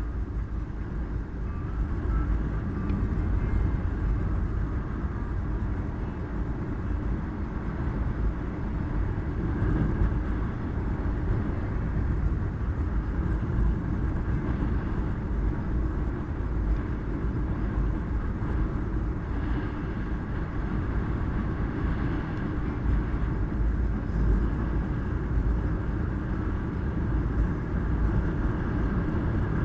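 Steady road and engine noise of a car driving, a low rumble heard from inside the car.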